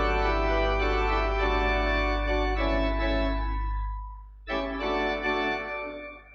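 Organ playing a few slow sustained chords over a deep held bass note, fading out about four seconds in, then one more chord struck half a second later that dies away.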